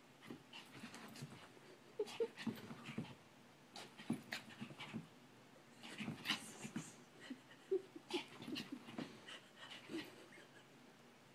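Small fluffy dog panting and huffing in short, irregular bursts while play-fighting with a kitten, with quick scuffles of paws on a woven rug.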